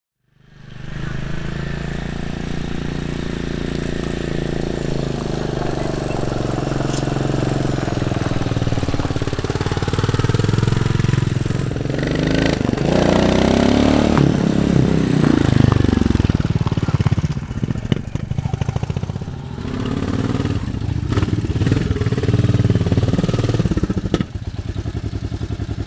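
Royal Enfield Classic 350's single-cylinder engine running as the motorcycle rides in, its pitch rising and falling in the middle of the passage, then quieter near the end as it settles.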